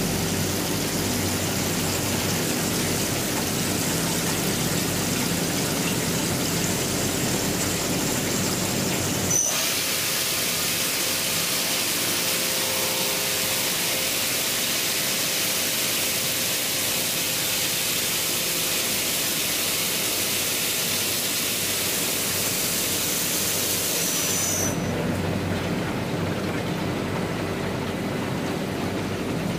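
CNC machining center face-milling aluminum: a steady machine whir with a spray-like hiss. About nine seconds in, a click and the sound turns brighter and hissier with less low hum; it changes back about 25 seconds in.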